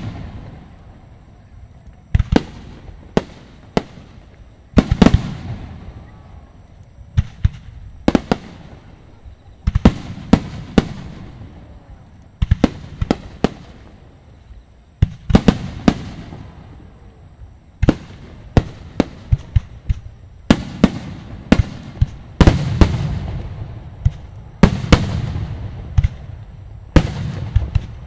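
Aerial fireworks shells bursting in irregular succession: sharp bangs, often in quick clusters of two to four, each trailing off in a rumbling echo.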